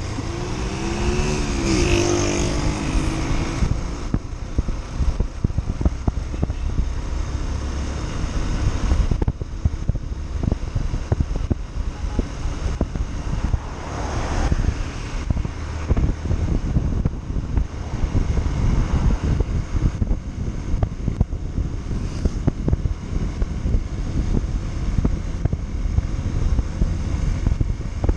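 Yamaha Factor 150 single-cylinder motorcycle under way: steady engine rumble heavily buffeted by wind on the microphone. In the first few seconds a pitch slides up and down over it.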